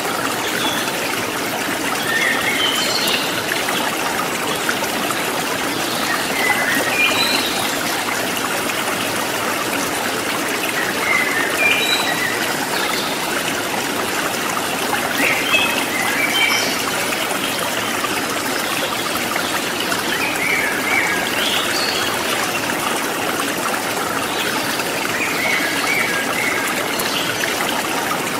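Steady running water, a trickling, stream-like flow, with short high chirps now and then.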